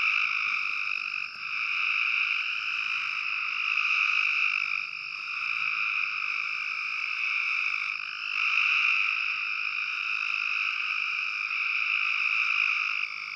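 Full chorus of Cope's gray treefrogs: many males' trilling calls overlapping into an unbroken, high-pitched din that swells and eases slightly in loudness.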